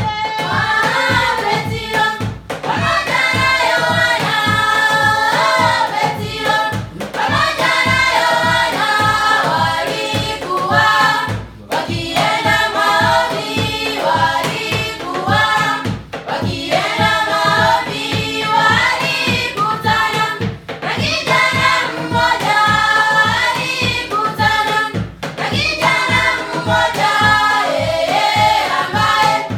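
A group of voices singing in chorus over a steady beat, in phrases of a few seconds with brief breaks between them.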